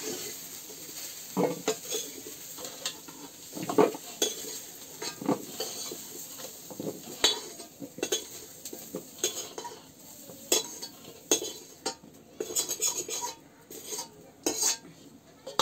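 A steel ladle scraping and knocking irregularly against a steel karahi and bowl as fried potato and cauliflower pieces are scooped out, with hot oil sizzling underneath.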